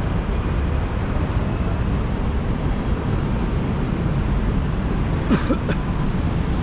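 Steady low rumble of city street traffic, with a brief sharp sound about five seconds in.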